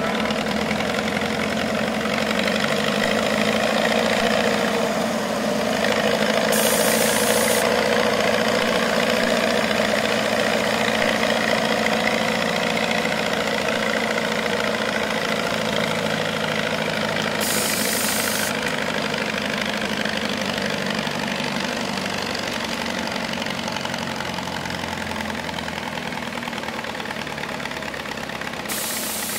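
Diesel engine of an old Super Major tractor working hard under load as it pulls a weight-transfer sled, a steady heavy running note that eases slightly over the second half.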